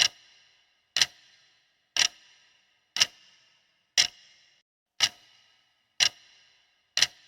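Quiz countdown timer ticking once a second, each tick a sharp clock-like click with a short ringing tail. It marks the seconds left to answer.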